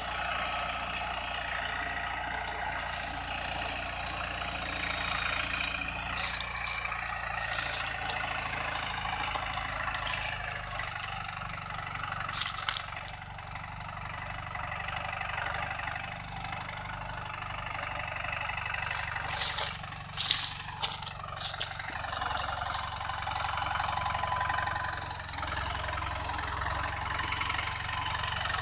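Captain 250DI mini tractor's diesel engine running steadily as it hauls two loaded sugarcane trailers. Groups of sharp clattering knocks come a few seconds in and again, loudest, about two-thirds of the way through.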